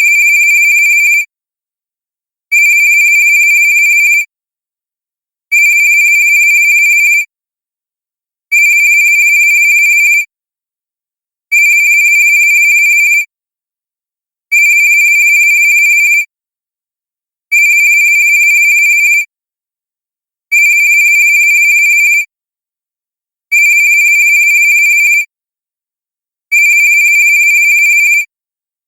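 Cartoon-style cell phone ringtone: a high, steady electronic ring about a second and a half long, repeated every three seconds with silence between, ten rings in all.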